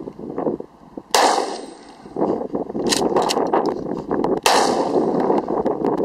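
Two gunshots about three seconds apart, each a sharp crack with a short echoing tail.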